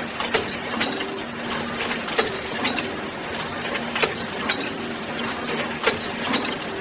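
Box-factory machinery running: a low steady hum under sharp metallic clanks and clicks that come at uneven intervals, about eight of them.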